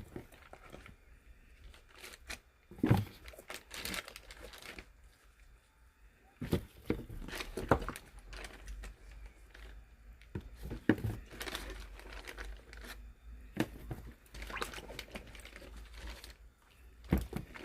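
Plastic crinkling and rustling with irregular knocks and clatters as salt-pickled cucumbers (oiji) are handled and packed into a plastic kimchi container.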